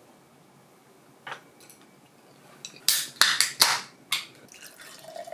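A beer can's ring-pull being opened: a few loud cracks and hisses in quick succession about three seconds in. Near the end, beer begins pouring into a glass mug.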